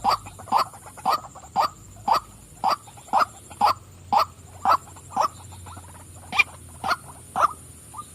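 Female white-breasted waterhen calling: a steady run of short, evenly spaced notes, about two a second.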